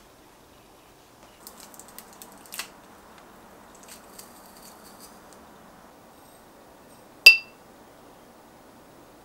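Quiet kitchen handling sounds: small clicks and crunches while garlic is pressed into a glass jar of cucumber. About seven seconds in comes one sharp clink that rings briefly, the loudest sound.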